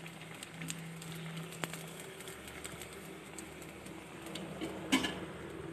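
Rice-flour and jaggery fritters deep-frying in hot oil in an iron wok: a steady sizzle full of small crackles and pops, with a sharper knock about five seconds in.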